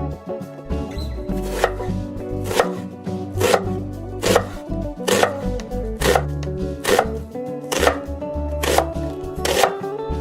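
Background music with sustained chords, joined about one and a half seconds in by a sharp knock repeating a little faster than once a second, steady and even.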